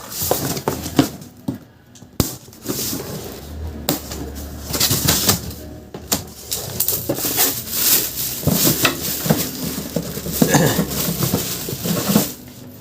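Unboxing noise: packaging and box contents handled by hand, with rustling and crinkling broken by many small knocks and clatters.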